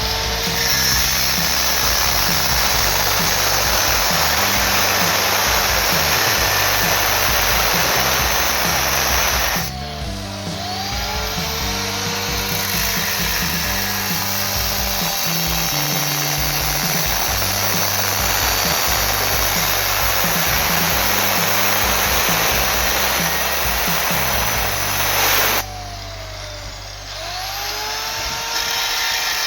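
Electric power tool running continuously on the steel of a motorcycle silencer, with background music under it. The tool breaks off briefly about ten seconds in and again near the end.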